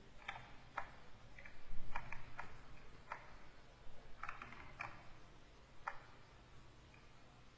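Scattered light clicks and taps from working at a computer, about a dozen irregular ticks, some in quick pairs, over a faint steady low hum.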